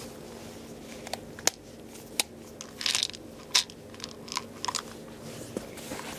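Irregular crackling and clicking handling noises close to the microphone, about a dozen sharp snaps spread over a few seconds, the loudest about one and a half and three and a half seconds in.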